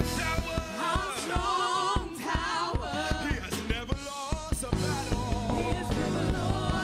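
Worship band playing a gospel song: a group of voices singing over drums, bass and guitar. The singing drops out about four and a half seconds in, leaving the band playing steady held chords with the drum beat going on.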